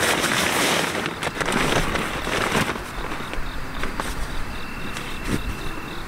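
Crinkly rustling and crackling of a nylon sleeping pad being handled and shifted, loudest in the first two and a half seconds and then softer. A thin steady insect tone comes in near the end.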